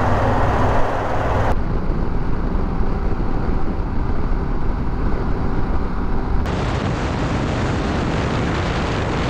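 Heavy wind rush and road noise from a Harley-Davidson Pan America 1250 (Revolution Max V-twin) riding at highway speed, with the wind striking the bike-mounted microphone. The sound changes abruptly about a second and a half in and again about six and a half seconds in.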